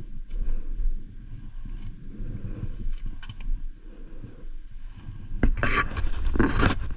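Wind buffeting the microphone: an uneven low rumble with a few light clicks, growing louder and rushing in the last second and a half.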